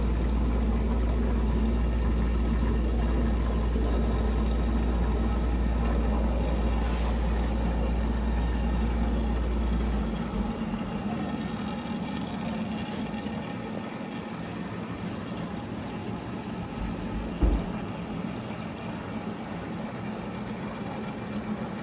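Automated hydroponic microgreen system running: a steady pump hum with water flowing through the grow trays. A deep rumble underneath stops about halfway through, and there is one short knock about three-quarters of the way in.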